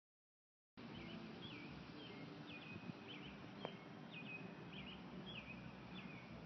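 Silence for the first second, then outdoor background noise with a small bird chirping repeatedly, about two short chirps a second.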